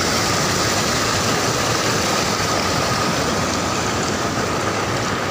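Water rushing over a rock ledge into a river: a steady, even rush of white water.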